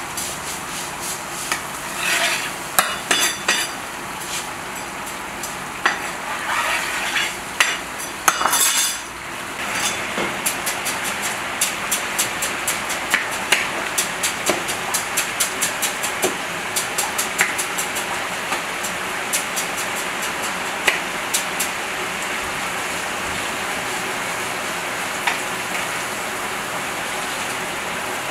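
A metal skimmer scrapes, stirs and knocks against the side of a large plov kazan full of rice in steaming liquid. After about ten seconds the stirring gives way to a steady bubbling sizzle with rapid small crackles.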